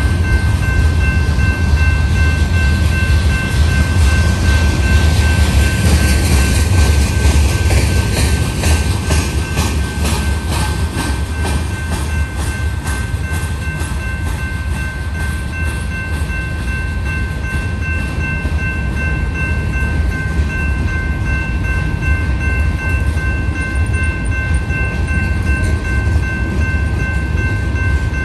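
Freight train cars rolling past: a heavy, steady low rumble with clicks of wheels over rail joints, thickest about a third of the way in. Steady high-pitched ringing tones sound over it.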